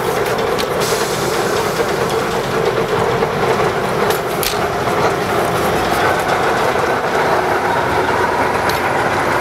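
TU7A narrow-gauge diesel locomotive's engine running loud and steady as the uncoupled locomotive moves off from the passenger cars. There are a couple of sharp metallic clicks about four seconds in, and a higher engine note joins about six seconds in.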